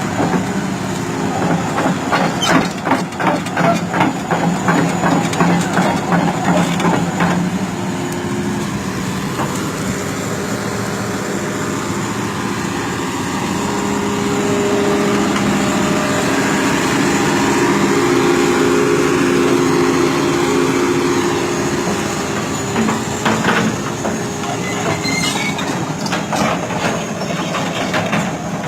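Hydraulic excavator working: its diesel engine runs steadily under hydraulic load, with a rapid metallic clanking over the first several seconds. The engine note rises and falls, getting louder in the middle as the load comes on.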